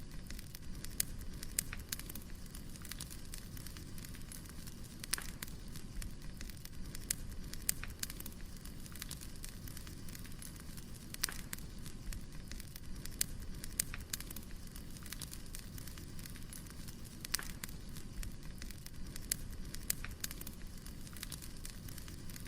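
Wood fire burning: a steady low rush of flames broken by irregular sharp crackles and pops.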